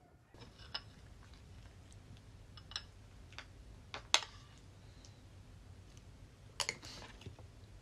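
Metal spoon clinking against a ceramic bowl during eating: a few sharp, separate clicks, the loudest about four seconds in and another pair at about six and a half seconds.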